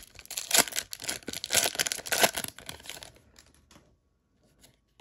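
Foil Pokémon booster pack wrapper being torn open by hand and crinkled, crackling densely for about three seconds and then trailing off into a few faint rustles.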